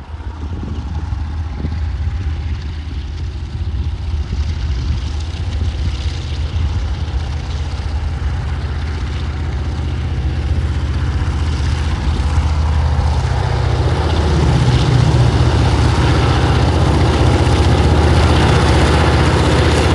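TasRail diesel locomotives, 2054 leading, hauling a log train under power, their engines' low drone growing steadily louder as the train approaches. A deeper, stronger engine note comes in about two-thirds of the way through as the locomotives draw near.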